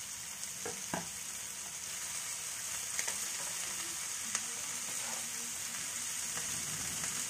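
Potatoes and peas sizzling in a pot while fresh fenugreek leaves are stirred in with a wooden spatula, with a few knocks of the spatula against the pot.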